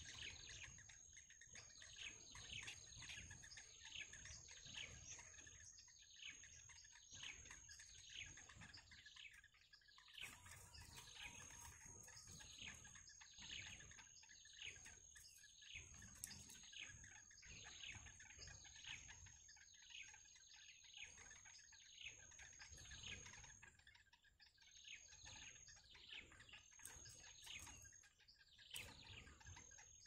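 Faint, continuous run of short downward chirps, two or three a second, from yellow bittern nestlings begging at the nest, over a steady thin high whine.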